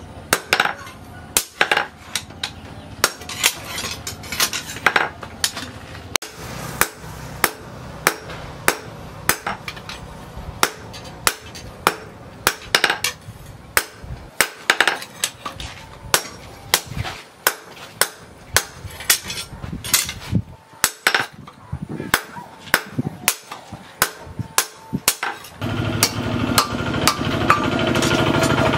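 Hand hammer striking a steel knife blade held in tongs on an anvil during forging: a long run of sharp ringing blows, about two a second. Near the end a loud steady noise comes in under the blows.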